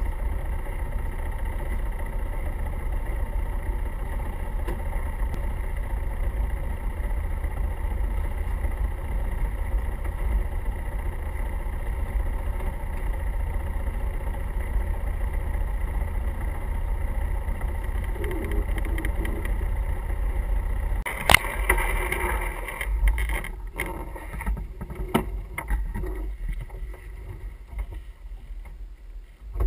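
Steady rushing wind and water noise aboard a sailing yacht under way. About two-thirds of the way through, a sharp knock is followed by scattered clicks and knocks as the crew work the lines and winch.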